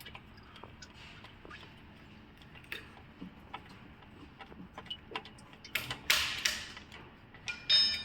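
Scattered light metallic clicks and taps of workshop tools and parts. A louder scraping rush comes about six seconds in, and a ringing metal clink comes near the end.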